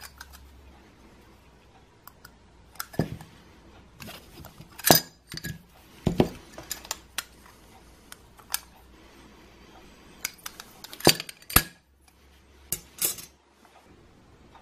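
Microwave-oven light diffuser covers, black plastic frames with clear panes, handled and set down on a table: irregular clicks, taps and clatters. The loudest knocks come about five seconds in and twice around eleven seconds.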